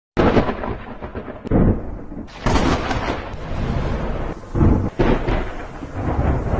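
Logo-reveal intro sound effect: a string of sudden loud booming hits, starting about a quarter second in and again around one and a half, two and a half and five seconds, each trailing off in a dense noisy wash.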